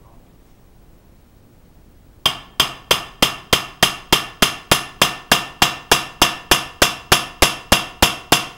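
Hammer blows on metal at the underside of a Suzuki Wagon R during preparation to drop the engine. The blows fall steadily at about three a second, each with a short metallic ring, and start about two seconds in.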